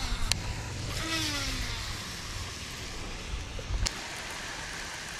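Baitcasting reel on a cast: the spool whirs with a falling pitch as the line pays out. A sharp click comes near the end.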